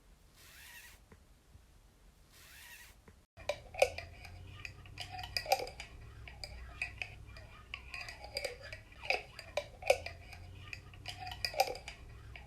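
Soft breathy swells repeating about every two seconds. After an abrupt cut, many sharp clinks and knocks of small hard objects over a low hum, like cutlery and dishes being handled.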